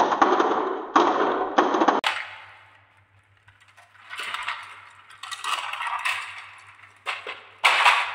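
Glass marbles rolling and clattering down a wavy wooden track and dropping into a plastic toy truck bed full of marbles, cutting off about two seconds in. After a pause, marbles roll and clink against each other in the truck bed in several swells as a hand moves them.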